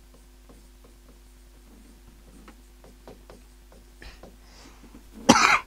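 Light, irregular ticks of a pen writing, over a low steady hum, with a short loud burst of noise near the end.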